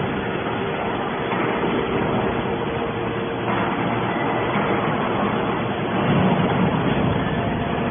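Hydraulic can baler running: a steady machine hum over a noisy mechanical rumble, a little louder about six seconds in.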